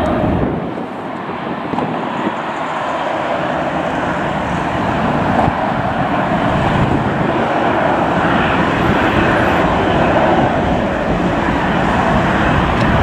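Jet airliner engines: a steady rushing jet noise with no clear whine, slowly growing louder.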